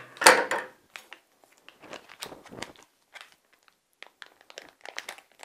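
A thin plastic food bag crinkling and rustling in the hands as soft thawed raw mince is squeezed out of it, in irregular short crackles. There is a brief louder noise right at the start and a short lull near the 4-second mark.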